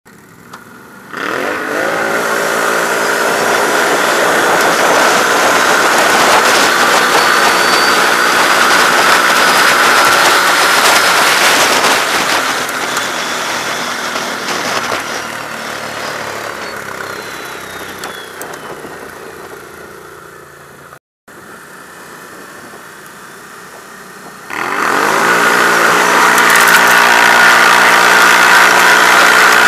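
ATV engines accelerating hard. About a second in, the engine pitch climbs quickly and stays at high revs for around ten seconds, then eases off slowly. Near the end it climbs sharply again under full throttle, with a rushing noise over the engine throughout.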